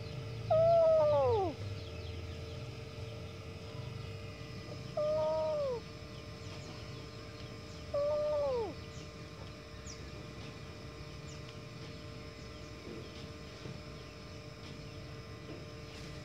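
Young kitten meowing three times, short cries that rise a little and then fall in pitch; the first, about half a second in, is the loudest. The distress meows of a frightened, abandoned kitten.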